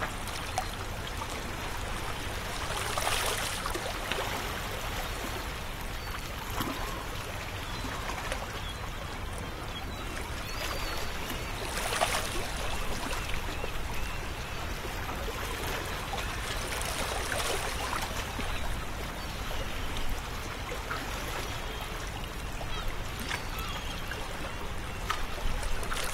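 Beach surf: small waves washing up onto sand and draining back, a steady hiss of water that swells every few seconds.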